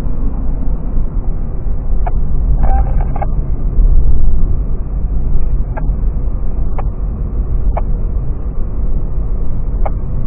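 Steady low rumble of a car driving on a snowy road, heard from inside the cabin, with a few short sharp clicks now and then.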